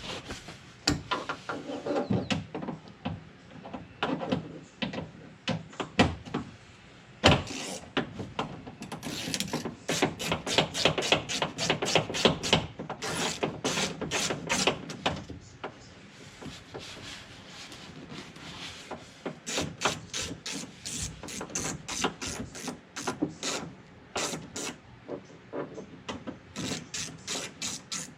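Hand ratchet clicking in quick runs as it backs out the 10 mm bolts that hold a door handle inside a truck door, with scraping and rubbing of the tool against the metal.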